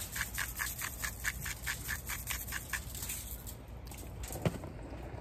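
Hand-twisted spice grinder grinding in quick, evenly spaced crunches, about five a second, stopping about three seconds in. A single sharp knock follows near the end.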